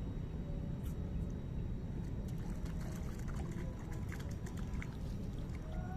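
Water trickling over a steady low rumble, with scattered faint clicks.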